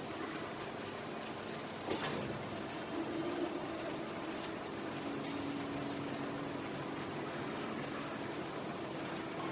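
Industrial factory ambience: a steady wash of machinery noise with a thin high whine and a lower hum, broken by a sharp clank about two seconds in.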